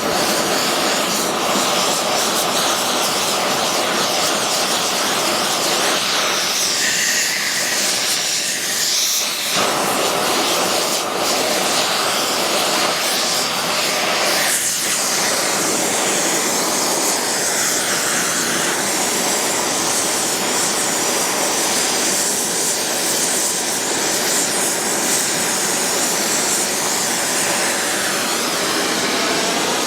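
Gas torch burner running with a steady, loud rushing flame noise, heating the lead-casting setup.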